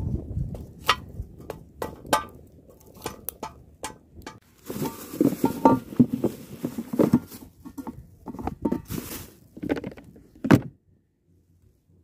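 Metal camping cookware being handled while tea water is readied: clinks, knocks and rattles, with two short hissing stretches. The sounds stop abruptly near the end.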